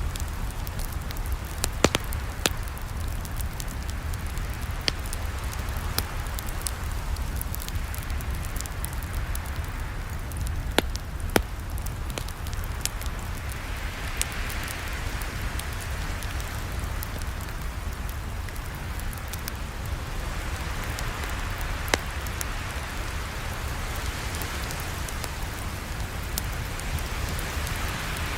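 Campfire crackling: a steady hiss and low rumble with scattered sharp pops, a few louder ones about two seconds in and about eleven seconds in.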